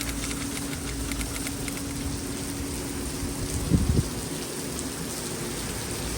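Heavy rain pouring down: a steady hiss of rain hitting the ground, with fine patter from individual drops. A faint low hum runs underneath and stops a little past halfway, and there is one brief low sound about four seconds in.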